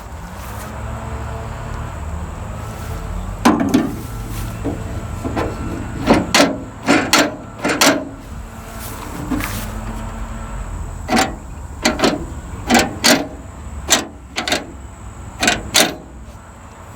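Hand tools working on a pickup's tailgate latch hardware: a series of sharp metal clicks and knocks, coming in clusters, over a steady low rumble.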